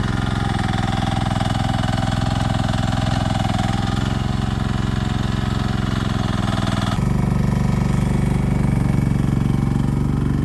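Small engine of a 1-ton Chinese mini excavator running steadily; about seven seconds in the sound changes abruptly to a fuller, lower engine note with less high-end.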